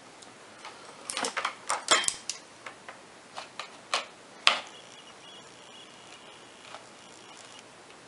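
Light clicks and taps of small electronic parts and multimeter test probes being handled on a paper plate, the sharpest tap about four and a half seconds in. A faint steady high tone follows for about two seconds.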